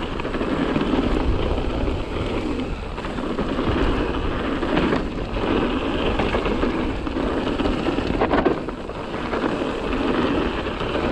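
Mountain bike rolling fast down a loose trail: a steady rumble of tyres on dirt and gravel mixed with wind on the microphone, and a few sharp knocks and rattles from bumps, one about five seconds in and a louder one a little after eight seconds.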